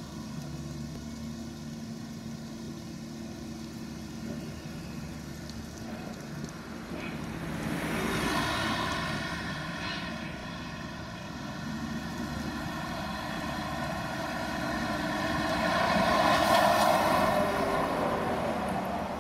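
Diesel engines of Volvo demolition excavators running steadily, swelling louder twice, about eight seconds in and again near the end, as the machines work under hydraulic load.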